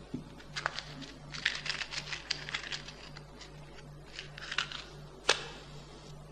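Small clicks and scratches of a matchbox and matches being handled, then a match struck sharply about five seconds in, flaring briefly, to light a candle.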